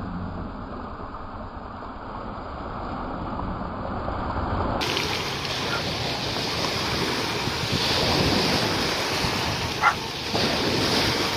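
Small waves breaking on a pebble shore with wind on the microphone: a steady rushing noise that turns brighter and louder about five seconds in.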